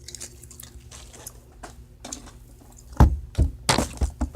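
Handling noise from items being unpacked: faint rustling and small clicks, then a loud thump about three seconds in, followed by a few more knocks and a rustle.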